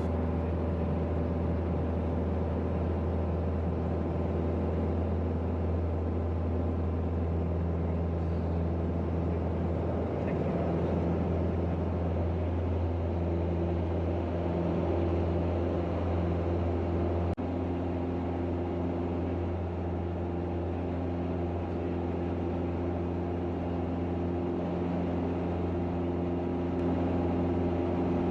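Single-engine piston light aircraft's engine and propeller droning steadily at takeoff power during the takeoff roll and climb-out, with a slight change in tone partway through and a faint click about two-thirds of the way in.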